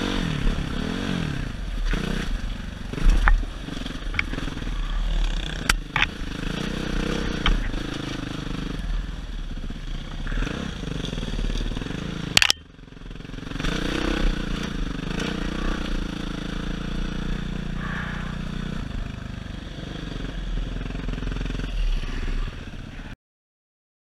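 Dirt bike engine running, its pitch rising and falling with the throttle, with clattering knocks and scraping from the bike riding over a rough rocky trail. The sound cuts off just before the end.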